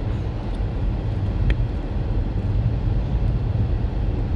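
Steady low rumbling noise with no pitch or rhythm, with a faint click about one and a half seconds in.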